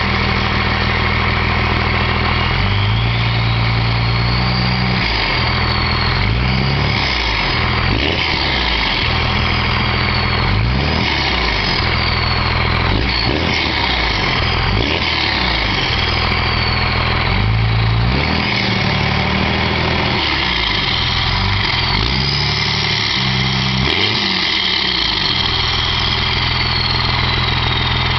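Dodge Cummins inline-six turbo diesel running through a 4-inch MBRP turbo-back exhaust, with a loud turbo whistle that rises and falls again and again as the engine is revved.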